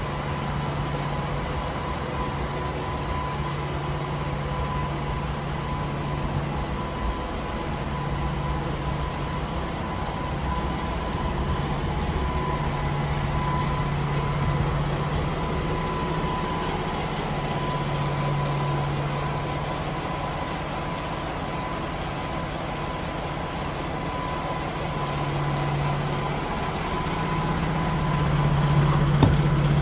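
DAF XF106's Paccar 480 hp Euro 6 diesel engine idling with a steady low hum that swells and fades in level and grows loudest near the end.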